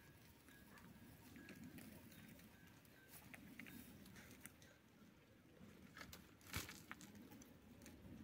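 Faint rustling and crackling of leaves and twigs as a goat browses a tree's branches, with scattered small clicks and one sharp snap about six and a half seconds in.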